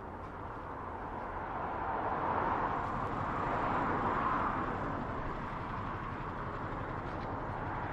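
Road traffic passing close by, the noise of a vehicle swelling and easing over a couple of seconds, then a steady traffic hum.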